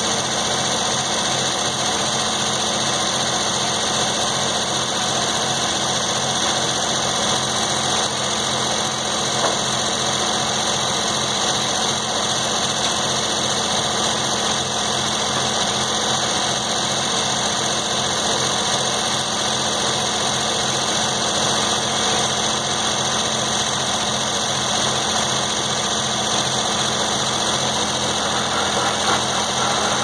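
Antique circular sawmill running steadily: the engine that drives it and the spinning saw, with an even low pulsing and no cut being made.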